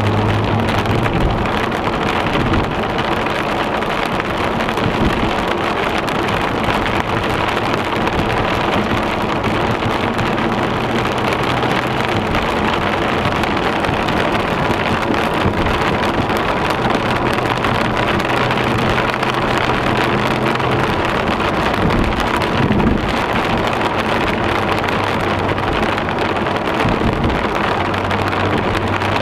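Steady noise of a car driving through heavy rain, heard from inside the cabin: rain on the body and windshield and tyres on the wet road. A low hum comes and goes.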